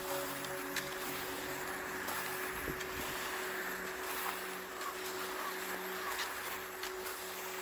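River rapids rushing steadily over rocks, with a faint sustained drone tone held underneath.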